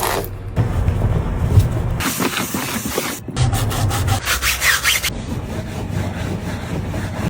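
Scrubbing: rough back-and-forth rubbing strokes on a surface, in a fast run of about six strokes a second near the middle, with a low hum under parts of it.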